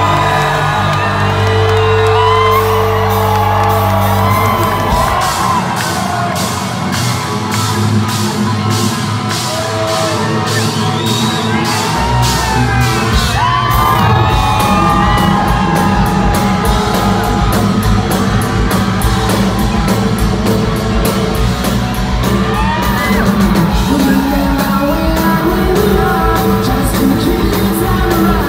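A hard rock band playing live through a hall PA: sustained chords, then the deep bass drops out for several seconds while steady cymbal ticks carry on, before the full band comes back in under the singer's vocals. Crowd whoops rise over the music.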